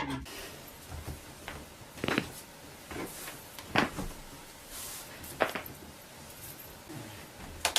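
A handful of sharp, short pops and clicks a second or two apart, the loudest about four seconds in and another right near the end: joints cracking as chiropractic adjustments are made.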